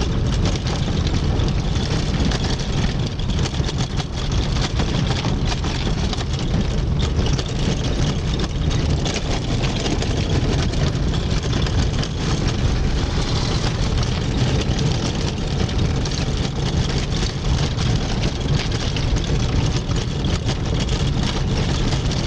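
Car driving on a wet, rough road: a steady engine and road rumble with a hiss over it, broken by frequent small knocks and rattles.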